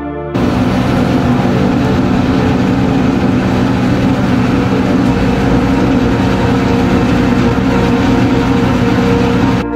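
New Holland FR 650 self-propelled forage harvesters chopping maize, their engines and cutterheads running at work in a steady, heavy drone, with a tractor running alongside.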